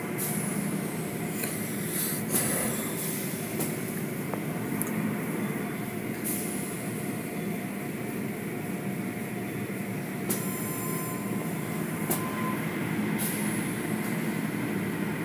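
Automatic car wash machinery running over a car, heard from inside the car: a steady mechanical hum with short hissing swishes as soft-cloth strips sweep across the hood and windshield.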